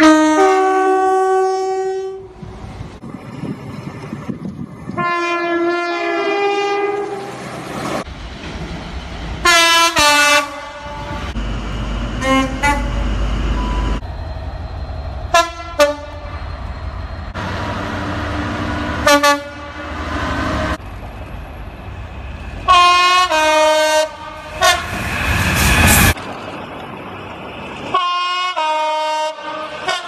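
A string of separate train horn soundings from different trains, mostly two-tone blasts stepping from a high note to a lower one, some held for a second or two and some short toots. They come from passenger multiple units and diesel freight locomotives. The low rumble of a passing train fills the gap between two of them, just before the middle.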